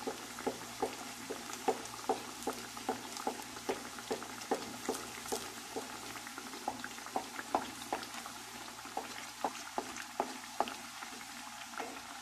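Hot oil bubbling and crackling around two masa quesadillas deep-frying in a pot, with small sharp pops several times a second.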